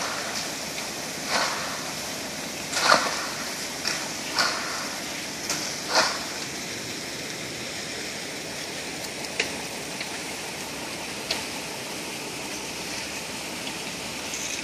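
Wet concrete being worked with a screed board and rakes: a scraping stroke about every second and a half for the first six seconds, then only occasional faint scrapes and ticks, over a steady rushing noise.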